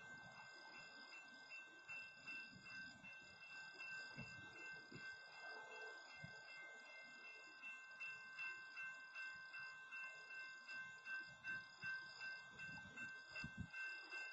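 Faint, steady ringing of a railroad crossing warning bell at a crossing blocked by a stopped freight train, with a faint, uneven low rumble underneath.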